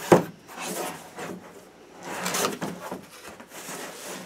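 A cardboard subscription box being opened by hand: a sharp knock at the start, then scraping and rustling of the cardboard.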